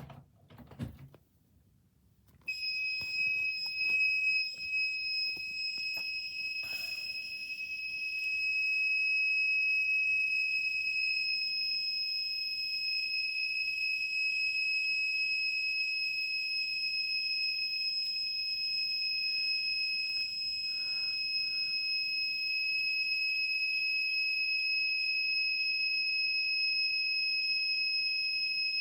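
Siemens FC901 fire alarm control panel's trouble sounder, powering up after a few clicks and then, about two and a half seconds in, sounding one steady high-pitched tone that holds on without a break: the panel's trouble signal.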